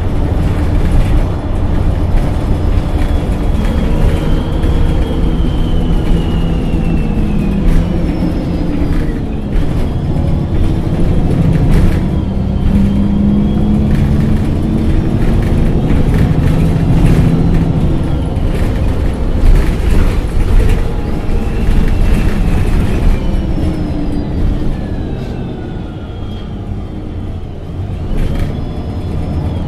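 MAN NG 273 articulated city bus driving on its LPG engine. The engine note swells and eases, and a whine glides down in pitch several times. It grows somewhat quieter near the end.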